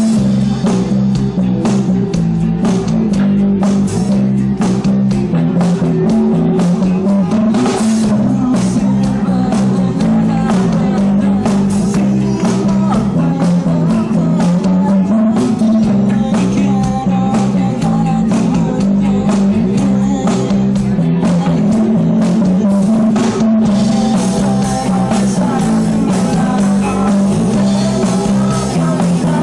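Live rock band playing: electric guitars through Marshall amplifiers, bass and drum kit, with a man singing.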